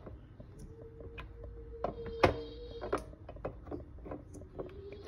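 A countertop cooking appliance running with a steady hum that drops out briefly in the middle, over scattered light clicks and taps, the loudest about two seconds in.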